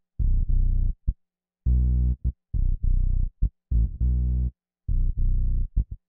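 Electronic music: low synthesizer notes chopped into short stuttering bursts with clean gaps of silence between them.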